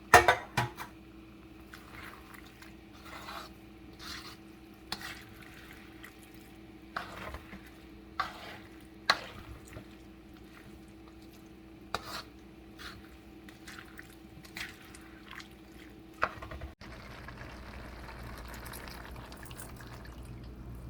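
A spoon or ladle stirring a pot of dinuguan (pork and blood stew), with scattered sharp knocks and scrapes against the metal pot over a steady low hum. About 17 seconds in the hum cuts off and a steady hiss continues.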